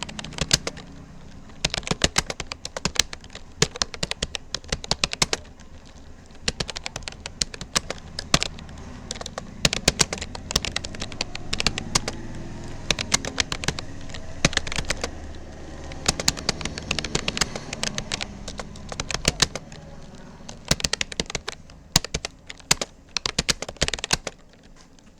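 Typing on a Rapoo computer keyboard: rapid runs of keystroke clicks in bursts, broken by short pauses.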